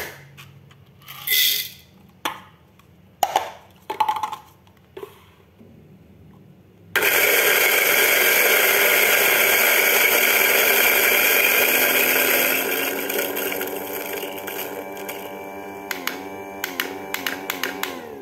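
Latina electric burr coffee grinder switching on about seven seconds in and grinding coffee beans with a loud, steady whir, set to 4.5 for a medium grind. After about five seconds the sound thins out and its pitch wavers and falls, with quick taps near the end. A few knocks and clicks come before it starts.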